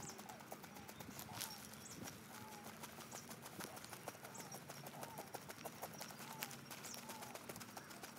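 Knife blade scraping scales off a bass, an irregular run of small sharp clicks and scrapes, with faint short chirps repeating behind it.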